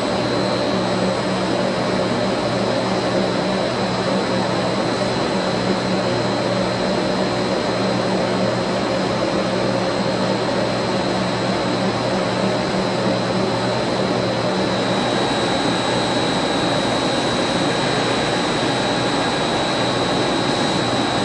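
UNISIG B500 BTA deep-hole drilling machine running, its metal tube workpiece spinning in the chuck: a loud, steady machine whir with a constant high whine over a low hum.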